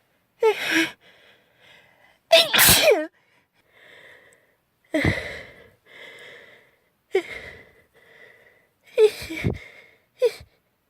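A girl sneezing repeatedly, about six sneezes in a row a second or two apart, with quieter breaths between them.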